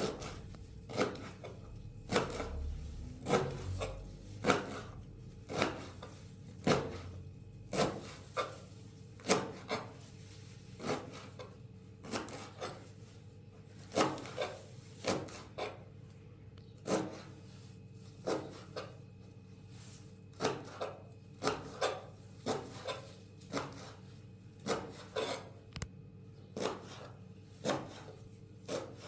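Fresh chicory stems being cut by hand, a short sharp stroke about every second with some scraping in between.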